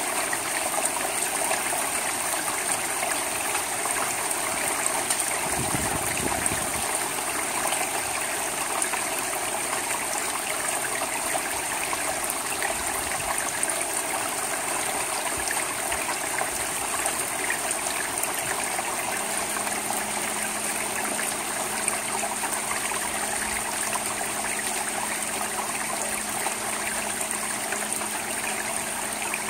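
Steady rain falling on a shingle roof and gutter: an even, unbroken hiss.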